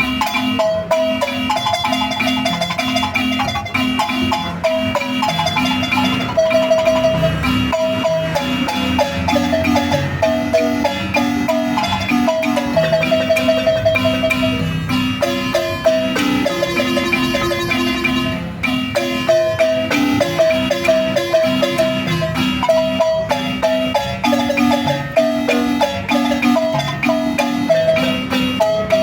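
Marimba music: fast repeated mallet strokes on the wooden bars, with a melody carried on tremolo notes above a steady, rhythmic bass line.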